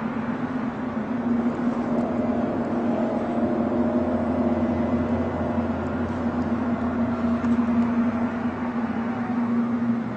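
Steady low-pitched droning hum, presented as 'the Hum', the unexplained humming sound people report hearing. A deeper rumble swells under it in the middle and fades before the end.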